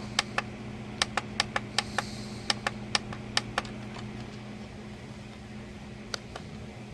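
Plastic buttons of a small digital alarm clock being pressed repeatedly to step the date forward: a quick run of about a dozen sharp clicks in the first three and a half seconds, then a pause and two more clicks near the end, over a steady low hum.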